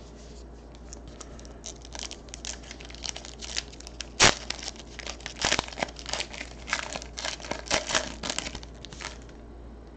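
Foil trading-card pack wrapper being torn open and crumpled in the hands: a run of sharp crinkling crackles, with one louder crackle about four seconds in.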